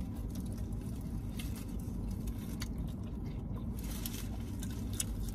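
Faint eating sounds: people chewing and biting into food, with scattered light clicks, over a steady low hum.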